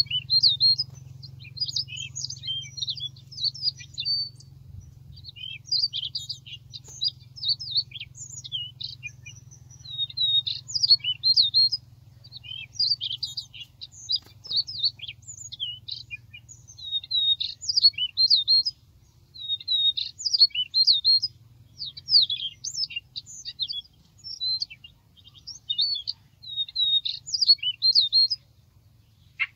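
Siberian rubythroat song, a continuous run of varied warbling phrases with hardly a pause, played as a lure through a bird-call speaker beside a trap. A faint low hum lies underneath.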